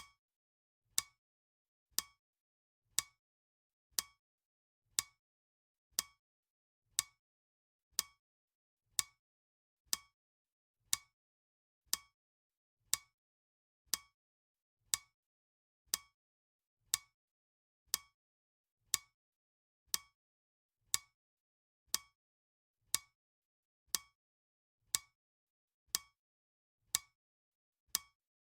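Clock ticking sound effect of a countdown timer: sharp, crisp ticks, one each second, evenly spaced.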